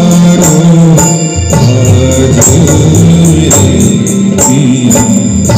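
Live Indian band music played loud through PA speakers: a hand-played barrel drum keeps a steady rhythm under keyboard.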